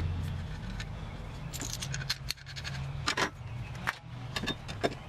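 Scattered metallic clinks and clicks of hand tools and A/C fittings being handled, over a low steady hum.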